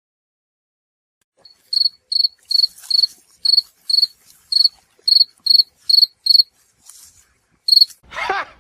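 Cricket chirping: short, high, even chirps repeating about twice a second after a second and a half of silence, the stock 'crickets' sound effect for an awkward silence. A brief sweeping sound near the end.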